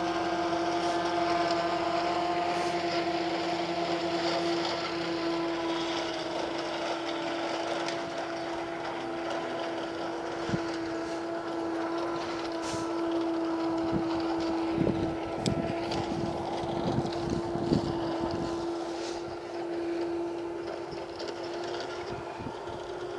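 Corn silage harvester running in the distance, a steady high drone that holds one pitch. About two-thirds of the way through, a few low thumps break in.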